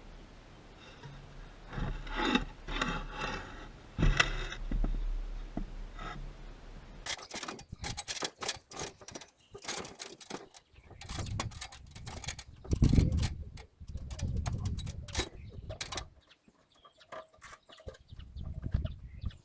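Birds calling for the first few seconds. Then comes about nine seconds of quick, sharp clicks, taps and scrapes from hand work, which dies away near the end.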